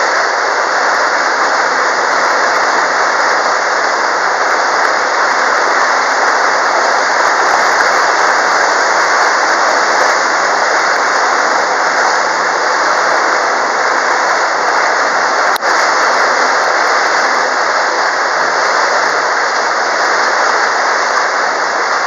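Steady loud rushing of a tour boat under way, wind and water noise on the microphone, with a faint low engine hum underneath.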